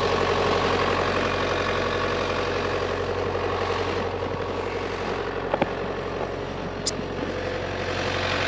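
John Deere 6400 tractor's diesel engine idling steadily, with a couple of faint clicks about five and a half seconds in and a brief high tick near the end.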